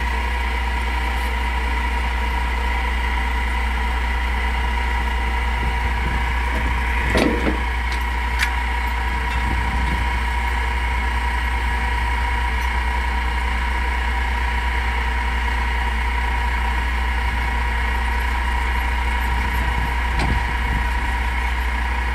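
Atlas Copco ROC D7 crawler drill rig's diesel engine running steadily at idle, with a steady high whine over a deep hum. A single metal clank stands out about seven seconds in.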